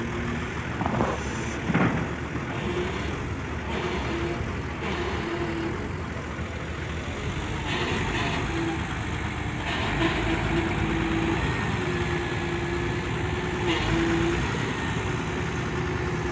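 Volvo EW145B wheeled excavator's diesel engine running steadily, with a whine that comes and goes as the boom and bucket are worked. There are two short knocks about a second in.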